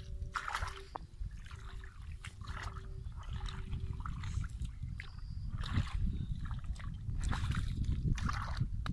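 Shallow muddy water splashing and sloshing in repeated short swishes as hands scoop and push it toward the mouths of buried pipes, over a steady low rumble.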